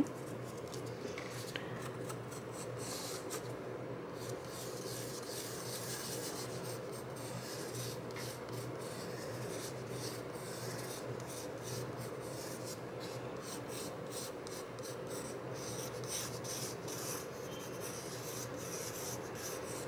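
Pencil and its eraser rubbing on cardboard: many short, quiet scratching strokes as lines are rubbed out and redrawn.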